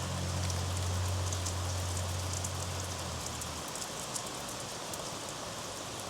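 Steady rain falling, with many separate drops ticking close by. A low steady hum runs underneath and stops about three and a half seconds in.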